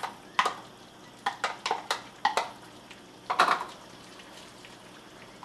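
Small plastic prep bowls tapped against a wooden spoon and the pan as basil leaves and scallions are knocked out into a hot skillet: a run of light, sharp knocks, with a louder clatter about three and a half seconds in.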